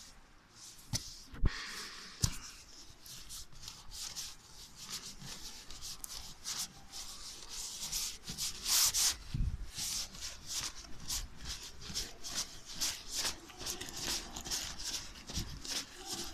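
Irregular scraping and rustling of a phone being handled and swung about, hand or clothing rubbing over its microphone, with a few sharp knocks in the first couple of seconds.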